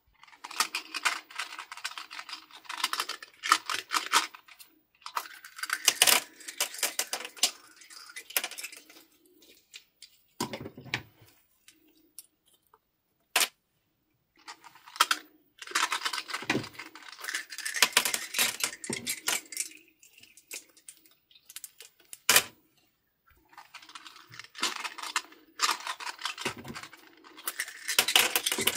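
Small plastic beads clattering and rattling as they are poured out of small plastic bags onto a plate, in several bursts with pauses between, with a few single sharp clicks.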